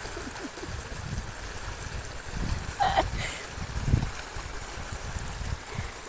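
Water rushing and churning at a lake's edge, a steady rush with a few low rumbles between about two and four seconds in.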